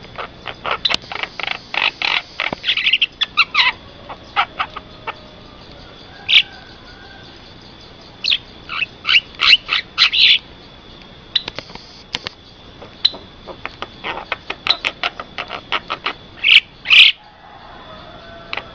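Javan mynas (jalak kebo) calling: bouts of rapid, harsh chattering notes broken by a few loud single calls, with short pauses between bouts.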